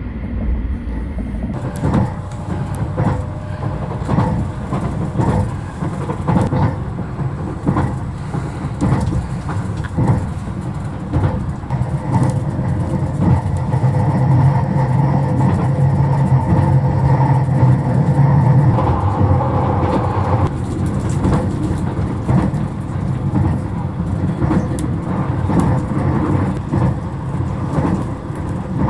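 Running noise inside the passenger car of the Panda Kuroshio, a JR electric limited express train under way. A steady rumble of wheels on rail carries frequent clicks and knocks, and a low hum swells for several seconds in the middle.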